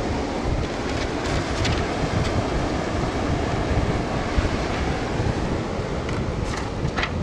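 Sea wind buffeting the microphone over small waves breaking on the shore: a steady rushing noise, heaviest in the low end, with a few faint crackles about a second in and again near the end.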